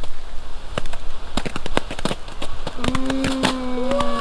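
Dancing butterfly ground firework going off with a rapid run of sharp crackling pops. About three seconds in, a steady whine joins the pops and holds.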